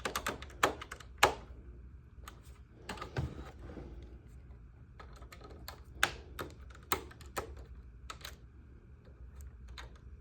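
Small, irregular clicks and taps of a screwdriver working screws on a model kit and the kit's parts being handled, with a few louder clicks.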